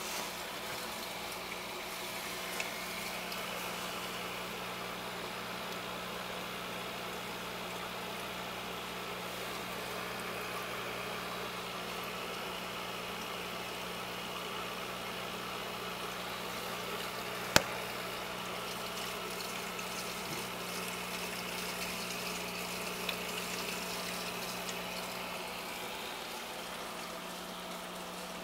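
Saltwater aquarium pump or powerhead running, a steady electrical hum with water moving and hissing through the tank. A single sharp click about two-thirds of the way through.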